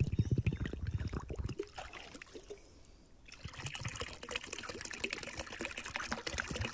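Water pouring and trickling in two spells: the first lasts about a second and a half, and the second starts after a short lull about three seconds in.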